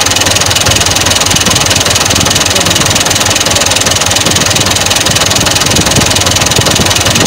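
HH Dabung tractor's diesel engine running at idle, heard close with the bonnet open: a loud, steady clatter.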